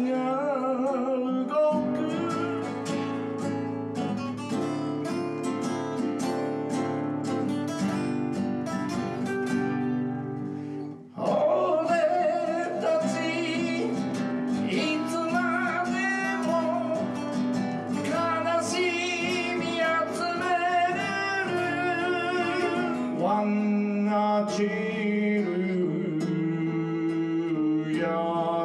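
A man singing while playing an acoustic guitar. The song breaks off briefly about eleven seconds in, then carries on.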